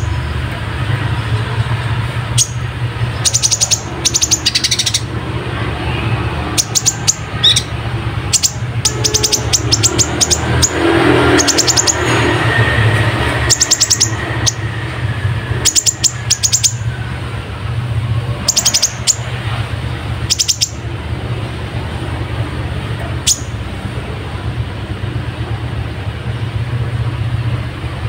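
A kolibri ninja sunbird singing in quick runs of short, very high chirps every second or two. Its song mixes in copied tree sparrow (burung gereja) chirps. A steady low hum runs underneath.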